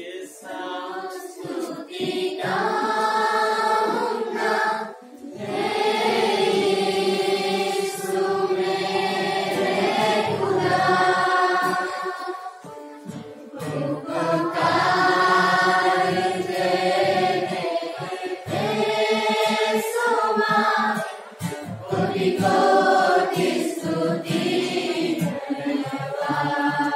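Congregation singing a worship song together, in sustained phrases of a few seconds with short breaks between them.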